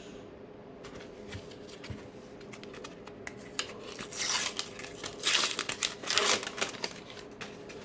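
Sticker-pack wrapper being torn open and crinkled by hand: light rustling and clicks, then three louder bursts of tearing and crinkling in the second half.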